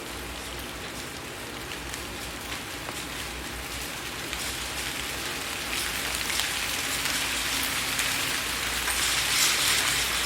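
Rain falling on a window, a steady hiss of rain with scattered sharp drop ticks on the glass. It grows gradually louder, heaviest near the end.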